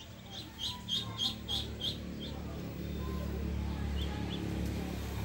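Muscovy ducklings peeping: a quick run of about seven short, high peeps in the first two seconds, then two more faint peeps later. A low, steady rumble builds under them from about halfway.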